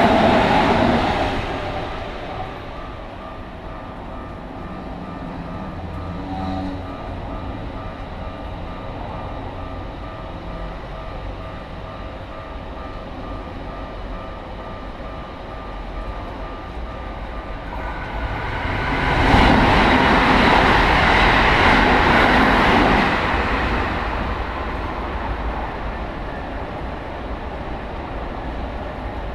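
Keikyu Line trains passing a level crossing. One train's noise dies away over the first couple of seconds, the crossing warning bell keeps ringing steadily, and a second train rushes through about two-thirds of the way in, loud for some five seconds before fading.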